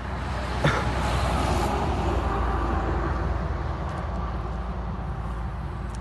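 Road traffic noise: a vehicle going by, its engine and tyre noise swelling over the first second or two and slowly fading. A single sharp click comes about two-thirds of a second in.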